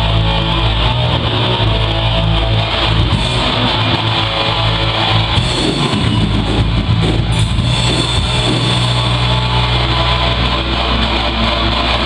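Rock band playing live, led by electric guitar, loud and continuous.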